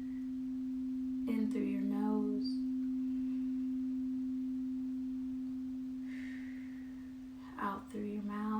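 Crystal singing bowl ringing one steady, sustained tone that swells slightly and then eases off. A voice speaks briefly over it twice, about a second in and near the end.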